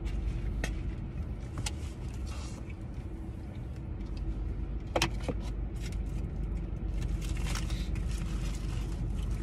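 Steady low hum inside a car with the engine running. A few light clicks and rustles from handling a drink cup and food come over it, the sharpest about five seconds in.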